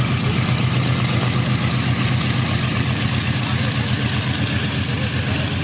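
Fairchild C-123 Provider's twin radial piston engines running at taxi power as the transport rolls past, a loud, steady, deep drone.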